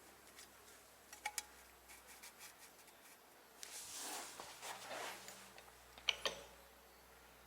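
Faint handling noises: a couple of light clicks about a second in, a stretch of rustling around the middle, and one sharp click about six seconds in.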